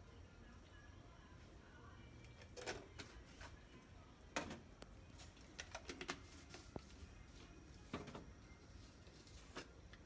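Several faint, scattered clicks and taps of a small plastic seasoning jar being opened and handled, over low kitchen room tone.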